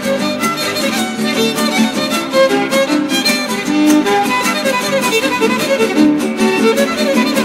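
Background music: an instrumental break in a son huasteco (huapango), with a violin playing the melody over steady rhythmic strumming.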